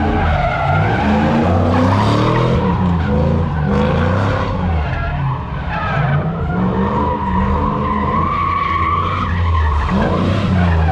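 A car doing donuts: its engine revs up and down continuously while the rear tyres squeal and skid on the pavement.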